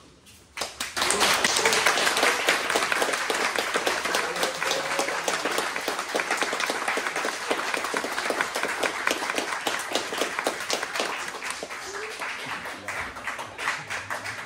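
Audience applauding, breaking out suddenly under a second in and thinning slowly toward the end.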